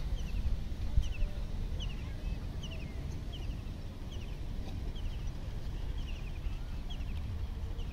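A bird calling over and over: short, high, falling chirps in twos and threes, repeating about every two-thirds of a second, over a steady low rumble.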